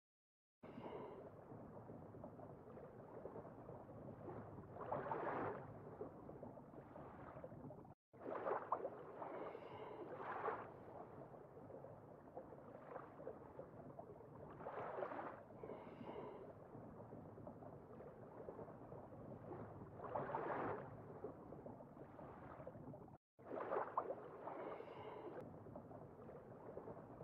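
Watery sound effect for the Google Search AR sea turtle: a steady rushing wash with bubbling gurgles that swell every few seconds. It cuts out briefly twice, as a looping sound file does.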